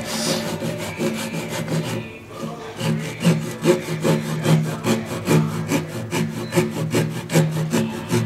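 Japanese handsaw cutting a kanawa tsugi scarf joint into a square wooden beam by hand, in steady rasping strokes about two and a half a second, with a short pause about two seconds in.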